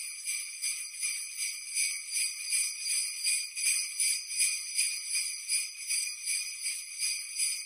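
Jingle bells shaken in a quick, steady rhythm, bright and high-pitched.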